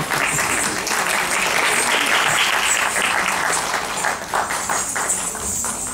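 Applause: many people clapping in a dense patter that thins to scattered single claps about four seconds in.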